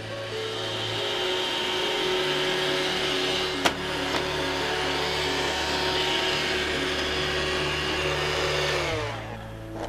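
A vacuum cleaner motor running with a steady hiss and hum, with one sharp click partway through; it cuts off about a second before the end. Soft background music plays underneath.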